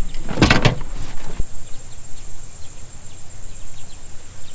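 Insects droning in a steady, high-pitched chorus. A short loud sound comes about half a second in and a sharp click about a second later.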